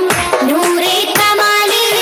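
A song played for a dance: singing over instrumental music with a steady drum beat.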